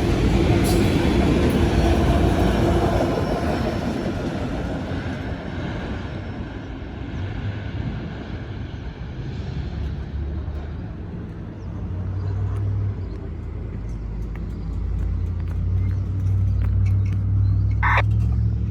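Freight train rolling past, its cars and wheels rumbling loudly at first, then fading over the first several seconds into a steadier low rumble.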